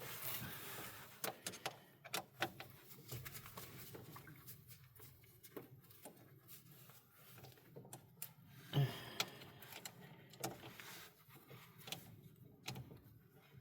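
Hand work on a battery ground cable and its screw: scattered light clicks and taps of small metal parts and tools, with a louder knock about nine seconds in.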